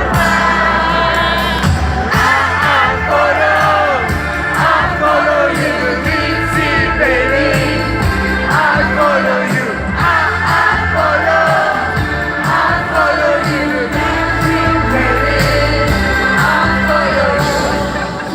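Live pop song performed on a concert stage: a woman singing the lead melody over a steady bass line and beat, amplified through the PA.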